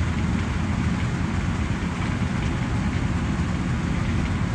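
Farm machine's diesel engine running steadily under work, a constant low drone with a rattling, noisy top.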